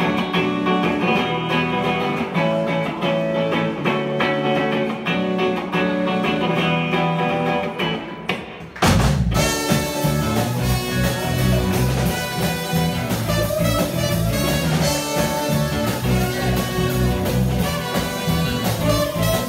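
Live indie rock band playing an instrumental intro. Electric guitars play alone at first. After a short break about nine seconds in, the full band comes in with drums.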